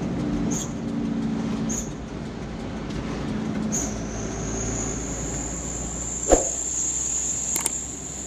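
A road vehicle's engine running with road noise: a low steady drone, joined about four seconds in by a thin high steady whine, with a short knock about six seconds in.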